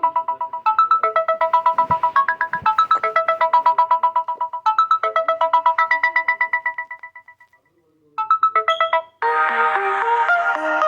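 Samsung Galaxy M30s ringtone playing: a bright electronic melody of quick repeated notes in repeating phrases, fading out about seven seconds in. After a short pause, a different, fuller electronic ringtone starts about nine seconds in.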